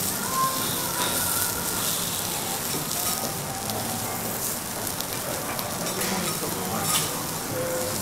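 Food sizzling steadily on a hot teppanyaki iron griddle, with an occasional faint click.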